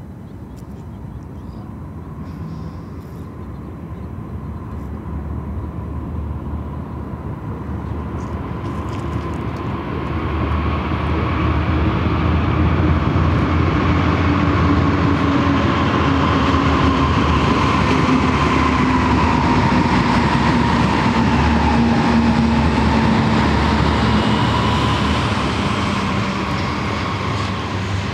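A pair of BNSF diesel locomotives, led by GE ES44DC 7755, approaching and passing with their engine drone. It grows steadily louder, and its pitch dips as the units go by. Freight cars follow, rolling past with steady wheel-on-rail rumble and clatter.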